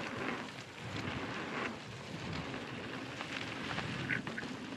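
Mountain bike riding down a dirt trail: tyre noise with scattered rattles and knocks from the bike, and wind noise on the microphone.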